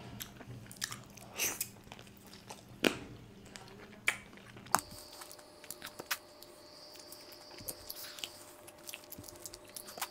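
Close-miked biting and chewing of a bone-in chicken piece, with irregular sharp clicks. The loudest clicks come about three seconds in and just before five seconds.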